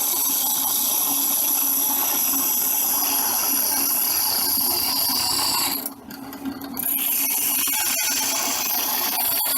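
Drill press running at top speed while a file scrapes the edge of a metal disc spinning in its chuck, turning down the burrs. The scraping drops out briefly about six seconds in, then resumes.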